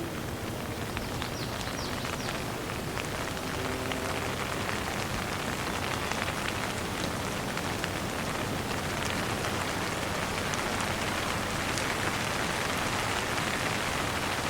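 Shower running: a steady spray of falling water.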